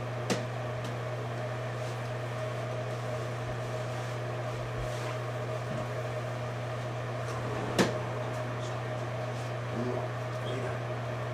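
Steady low hum with two sharp knocks, a light one just after the start and a louder one about eight seconds in.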